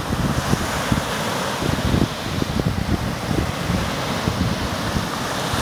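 Baltic Sea surf washing onto a sandy beach, with wind buffeting the microphone in uneven low rumbles.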